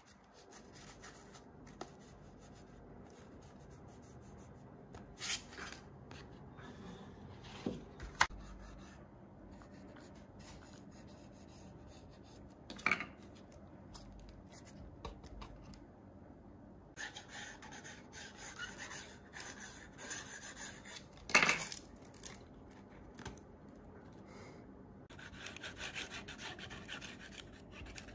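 Sandpaper sheets being handled, rubbed and wrapped around a wooden dowel: soft rustling and rubbing, with a few sharp taps, the loudest about two-thirds of the way through.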